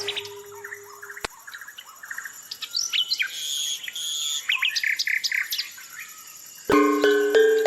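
Small birds chirping and whistling in quick, short calls. Close to the end, melodic music comes in suddenly.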